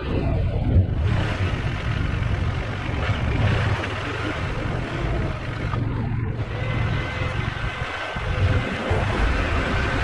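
Husqvarna Svartpilen 401's single-cylinder engine on its stock exhaust, running steadily while riding in traffic, with wind and road noise over it.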